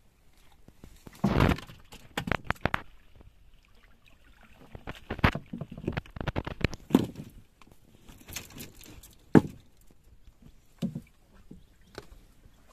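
Irregular splashes and knocks in water, in scattered short bursts with a sharp knock about nine and a half seconds in.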